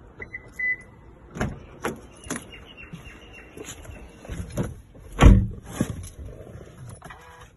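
Toyota car being unlocked and entered: a couple of short high beeps, then sharp clicks as the driver's door handle is pulled and the door opens, then a heavy thump about five seconds in as the door shuts.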